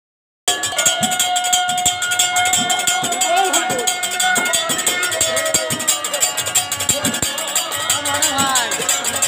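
Brass hand cymbals (kartals) of a kirtan clashing rapidly and continuously, with held ringing tones above them and short swooping tones near the end. The sound cuts out completely for about half a second at the start.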